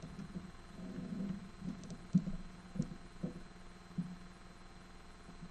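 Faint dull thumps and bumps picked up by the podium microphone, about five of them roughly half a second apart, over a low steady hum.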